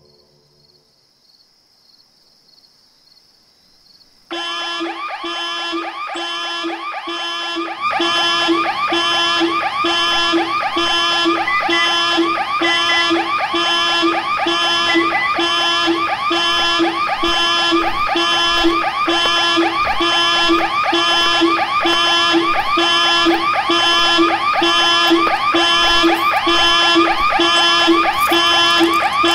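A loud, steady, pulsing electronic siren-like tone, repeating evenly, that cuts in abruptly about four seconds in; a deeper low layer joins about eight seconds in.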